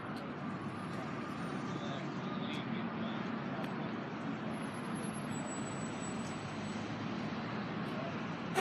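Steady road traffic noise, an even hiss and rumble of passing vehicles, with one sharp click at the very end.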